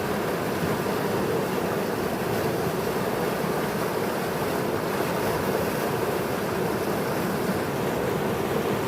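Rapti River in flood: fast, swollen water rushing past in a steady roar-like rush, with no breaks.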